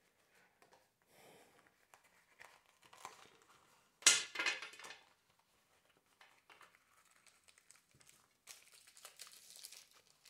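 Handling noise from unpacking: a soft drawstring pouch rustling and crinkling as it is opened and emptied, with the loudest burst of rustling about four seconds in. Near the end, a small plastic silica gel packet crinkles.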